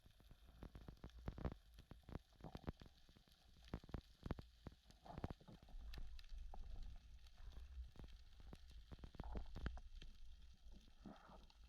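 Muffled underwater sound picked up by a camera in a housing: a faint low rumble with scattered clicks and knocks, and a few short gurgles.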